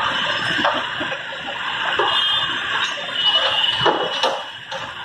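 Backhoe loader's diesel engine running amid street noise, with several sharp knocks and clatters of debris and a faint high steady tone.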